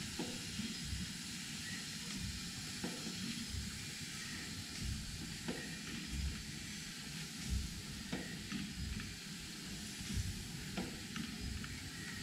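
Fitchburg 150 hp horizontal piston-valve mill steam engine running quietly and smoothly: a steady hiss of steam over a low rumble, with a faint click about every two and a half seconds.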